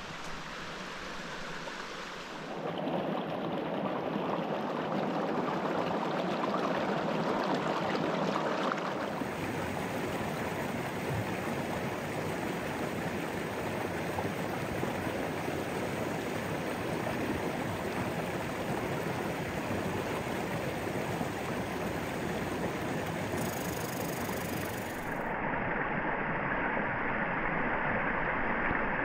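Brook water rushing steadily. The tone and loudness change abruptly a few times, about two and a half seconds in, around nine seconds and near the end.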